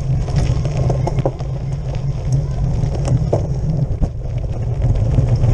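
Steady low rumble of wind and road vibration on a handlebar-mounted camera as a cyclocross bike rides over a dirt course, with scattered knocks and rattles from bumps in the ground.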